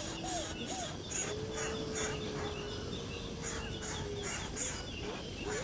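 Birds calling: short upswept notes, then one long held whistle lasting about three seconds, over a rapid pulsing high-pitched chirring.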